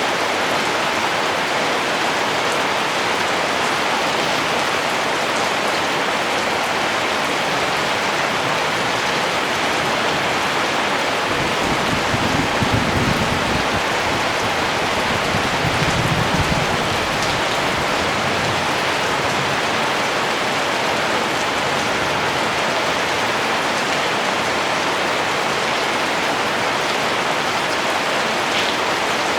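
Steady rain falling, an even hiss with raindrops on surfaces. From roughly a third of the way in, a low rumble swells twice over about five seconds and fades again.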